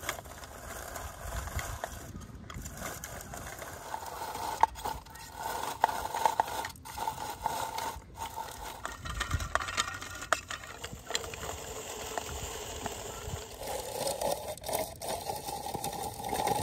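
Hand-cranked rotary drum grater turning, its metal drum scraping and crunching as food is pressed through it, with many small clicks and rattles.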